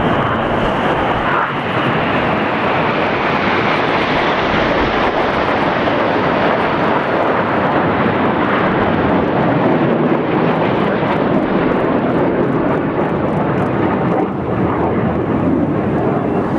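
Formation of BAE Hawk T1 jets passing overhead, their jet engines making a loud, steady rushing noise throughout.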